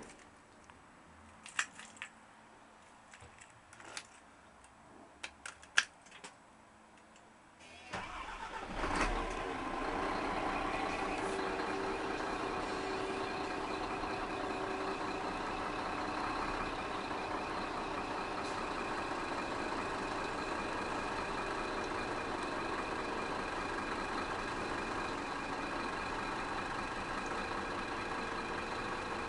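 A few light clicks, then about eight seconds in the Scania G380 truck's diesel engine starts with a brief surge and settles into a steady idle at about 500 rpm.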